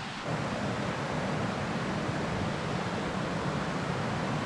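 Steady rush of a waterfall, a constant hiss of running water that comes up a moment in and holds.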